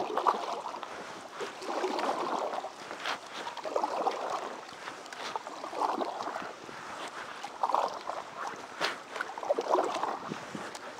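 Canoe paddles dipping and pulling through lake water, a splashing swish about every two seconds, with small knocks scattered between the strokes and one sharper knock at the very start.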